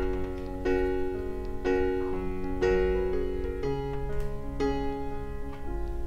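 Background piano music: a slow, gentle piece with a new chord struck about once a second and left to ring.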